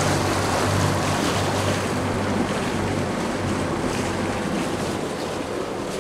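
Steady rush of wind and sea water around a sailing catamaran under way, with a low hum fading out in the first couple of seconds.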